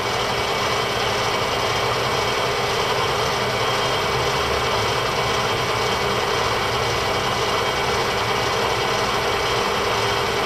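Bridgeport step-pulley vertical milling machine running steadily, its 1 HP three-phase motor turning the spindle in high range with the quill power feed engaged.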